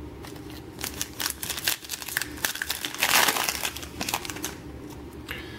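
The foil wrapper of a Panini Prizm football card pack crinkling in the hands and being torn open. Crackly clicks build to the loudest stretch a little after three seconds in, then die away.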